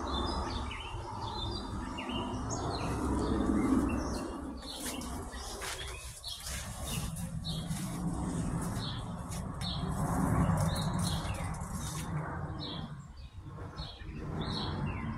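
Small birds chirping repeatedly in short high calls, over a steady low rumble, with a few brief clicks about four to six seconds in.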